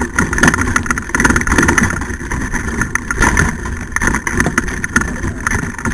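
Rolling rumble and rattle of a dryland dog-racing kart bouncing over a rough dirt trail, with wind buffeting the microphone.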